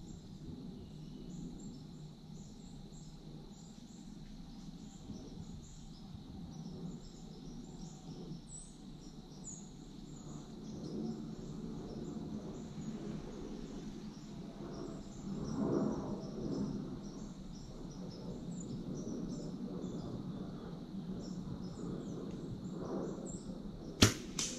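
Quiet woodland ambience: insects chirping steadily, with a low rustle that swells and fades in the middle. Near the end comes a single sharp click as a compound bow is lifted.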